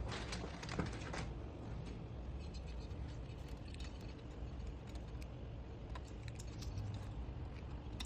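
Small plastic clicks and rattles of wiring harnesses and zip ties being handled and fastened, scattered irregularly over a steady low hum.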